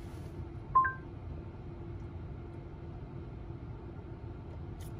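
Short two-note electronic chime, a lower note then a higher one, from the Polestar 2's Google Assistant infotainment system as it takes a spoken climate command. Behind it, a steady low hum of the cabin ventilation blower running.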